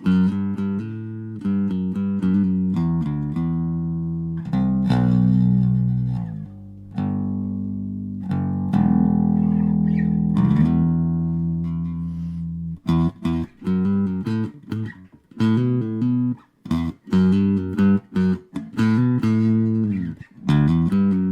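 Electric bass played with a pick through an EROK MA10 mini bass amp. A few long, ringing notes in the first half give way to short, choppy notes in the second half.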